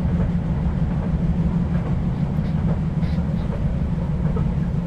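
Subway train running, heard from inside the car: a steady, loud low rumble with even noise above it.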